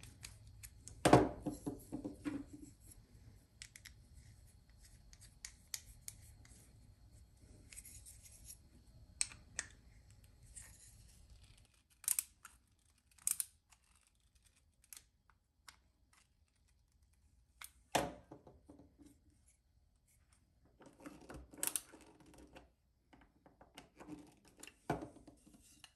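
Small screws being driven by hand into black 3D-printed plastic parts: scattered light clicks and short scratchy turns of the screwdriver, with a few sharper knocks as parts are handled and set against the desk, the loudest about a second in and about 18 seconds in.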